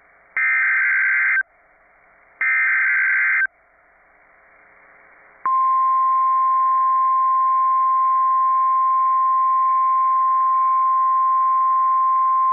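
Emergency Alert System tornado warning signal: two harsh, buzzing bursts of SAME digital header data, each about a second long and a second apart, then about two seconds of quiet, then the steady single-pitch 1050 Hz Weather Radio alert tone starts and holds.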